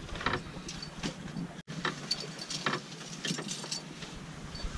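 Light handling noises: a plastic detergent jug and a cloth laundry bag being moved about and lifted out through a boat's companionway, with scattered short knocks and rustles.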